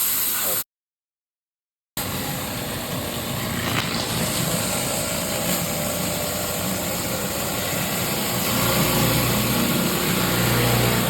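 Gas-engine pressure washer running, with a steady high hiss of water spray over the engine hum. It cuts in after a short silence about two seconds in, and the low engine tone grows stronger near the end.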